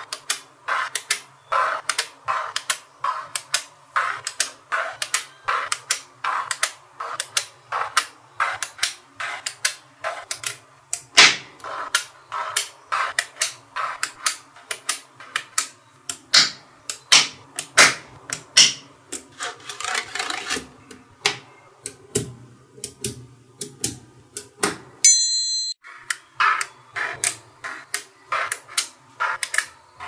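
Small metal magnetic balls clicking as cubes of them are snapped onto a slab of magnet balls, a sharp click about twice a second. The clicking breaks off briefly with a short high tone about 25 seconds in.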